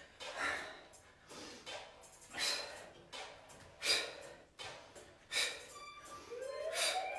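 A woman breathing hard during fast plié squats, a sharp breath about every second and a half in time with the squats. Near the end a rising tone comes in.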